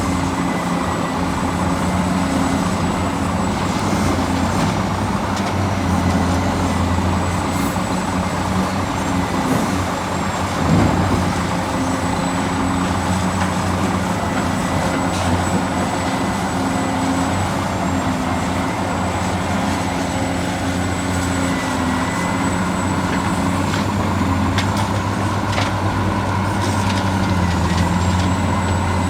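Radio-controlled excavator and dump truck working: a steady low machine hum with a thin high motor whine that dips and rises now and then, and scattered small clicks.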